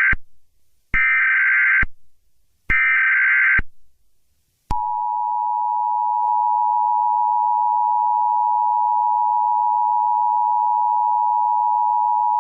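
Emergency Alert System tones. The tail of one SAME header data burst is followed by two more bursts, each just under a second with short gaps between them. About a second later the steady two-tone EAS attention signal starts and holds.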